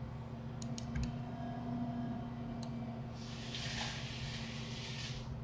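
A few faint clicks of a computer mouse and keyboard in the first three seconds, over a steady low hum of room tone. A soft hiss lasts about two seconds past the middle.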